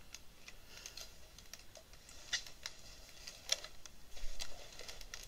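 Irregular light clicking from working a computer: a dozen or so short clicks at uneven spacing, the loudest a little over two seconds in and around three and a half to four seconds in.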